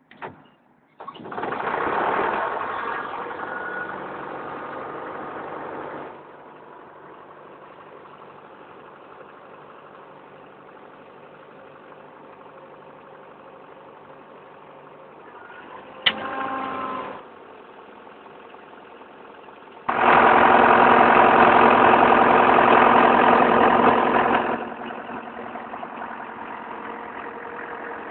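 Turbocharged diesel engine of a portable air compressor starting about a second in, then settling to a steady idle. Later comes a short burst with a sharp click, followed by a much louder stretch of about four seconds before it drops back to a steady run.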